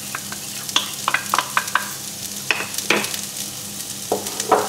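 Diced chorizo and chopped onion sizzling in a hot non-stick frying pan with no added oil, the chorizo's own fat frying them, with frequent sharp crackles and pops over a steady hiss.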